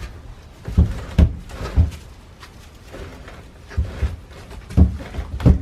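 About six short knocks and thuds at uneven intervals as things are handled in a home freezer: food packages and containers being moved and set down.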